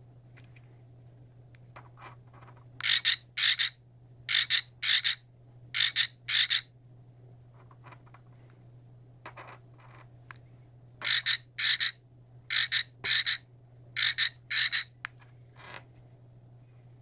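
Electronic frog croak from a frog LED flashlight keychain's sound chip: short double 'ribbit' croaks, three in a row, then after a pause of several seconds three more. Faint clicks come between them.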